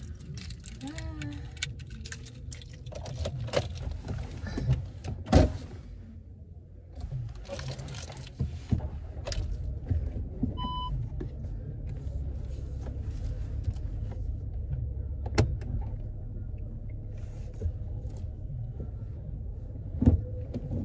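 A car being got into and started: scattered clicks and knocks, one loud thump about five seconds in, and a short electronic beep near the middle, over a low steady rumble.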